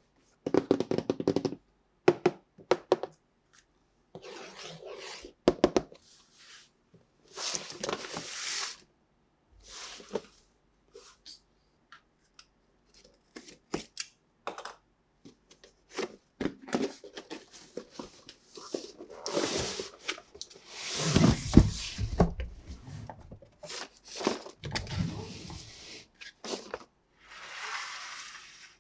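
Toy packaging being opened and handled by hand: irregular bursts of rustling and tearing of plastic and cardboard, broken by sharp clicks and a few heavier knocks from plastic toy parts.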